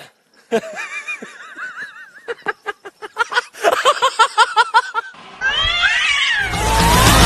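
A cat yowling, a long cry that wavers up and down in pitch, then a quick run of short repeated cries, about five a second. Loud rock music with guitar comes in near the end.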